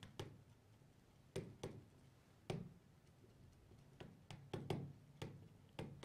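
Pen tapping and clicking against the glass of a touchscreen display while handwriting: faint, short taps at irregular intervals, coming more often in the second half.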